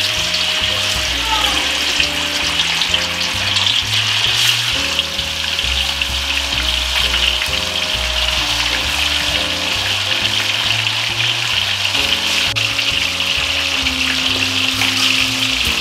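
Hot oil sizzling steadily in a wok as food deep-fries, with background music playing underneath.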